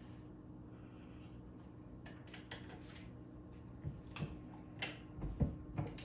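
Light metal clicks and knocks from a single-stage reloading press as the bullet seating die is adjusted and the press handle is worked. There are a few soft clicks, then a quick series in the second half, the loudest a dull knock just after the middle. A steady low hum runs underneath.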